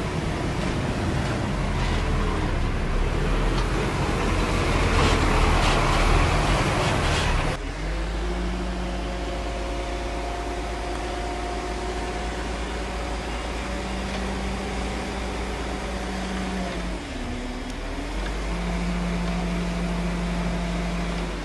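Heavy diesel construction machinery running. A loud, rough rumble gives way abruptly, a little over seven seconds in, to a steadier engine hum whose pitch dips briefly and comes back up about two-thirds of the way through.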